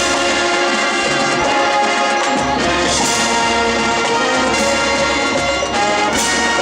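Marching band playing a brass-heavy passage of sustained chords, with deeper bass notes joining about two and a half seconds in.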